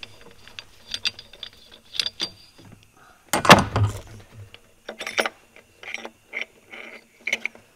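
Slide hammer on a homemade puller fitted to an Audi 3.0 TDI diesel fuel injector: scattered metal clicks and knocks, with one heavy clank about three and a half seconds in, as the injector is pulled from its bore.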